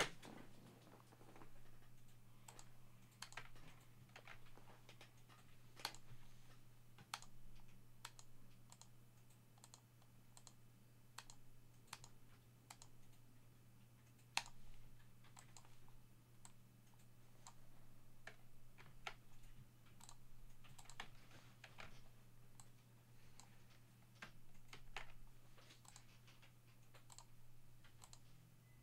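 Faint, irregular clicks of a computer mouse and keyboard as random.org's list randomizer is clicked through repeatedly, over a low steady electrical hum.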